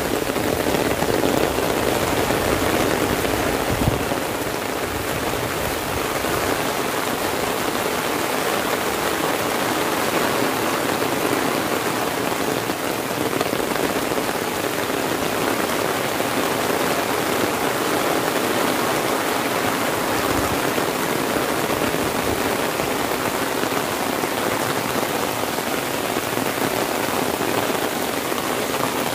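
Heavy rain falling steadily on grass and palm trees and on an umbrella held overhead, an even hiss with no let-up. There is one brief thump about four seconds in.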